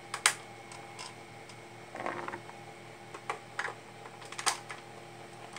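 Scattered small plastic clicks and taps of batteries being fitted into a toy robot's battery compartment, the sharpest just after the start and another about four and a half seconds in.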